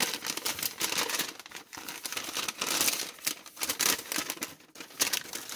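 A folded paper instruction sheet being unfolded and handled, crinkling and rustling unevenly.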